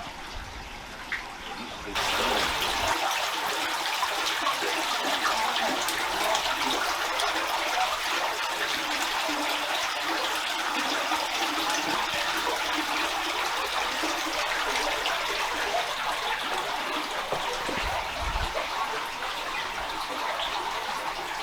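Spring water trickling and running down a rock bank in a small waterfall, a steady splashing rush that gets abruptly louder about two seconds in.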